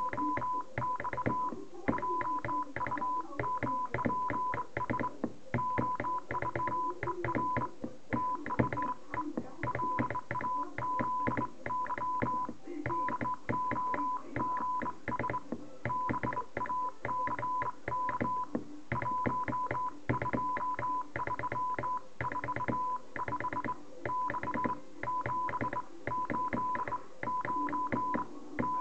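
Morse code hand-sent on a Royal Navy Admiralty Pattern 7681 straight key: a steady high-pitched beep keyed on and off in dots and dashes, with short pauses between letters and words. The key's contacts click at each press and release.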